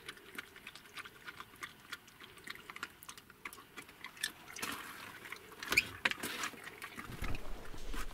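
A dog eating wet food from a plastic bowl: a run of quick smacking and lapping clicks, busiest around the middle.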